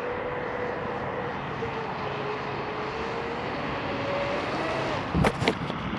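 A 36-inch RC catamaran's brushless motor whining steadily as the boat runs across the water, its pitch wavering a little with the throttle. A few sharp knocks a little after five seconds in are the loudest sound.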